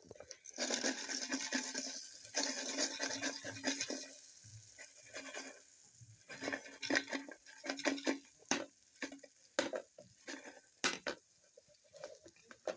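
A utensil stirring and scraping frying pieces of meat around the oily bottom of a large metal can used as a cooking pot, with clinks against the metal. The scraping is dense for the first few seconds, then turns into separate knocks and scrapes.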